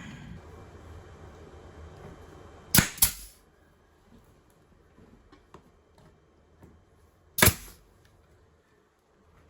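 Sharp bangs: a quick pair about three seconds in and a single one about seven and a half seconds in, with faint small clicks between them.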